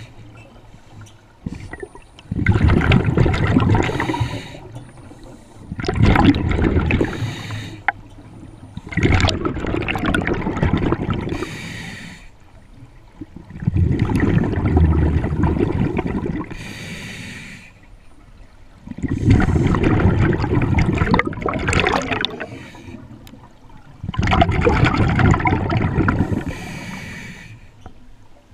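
Scuba regulator breathing underwater: six long rushes of exhaled bubbles, each a few seconds long, about every five seconds, with a brief high hiss of inhaling through the regulator between them.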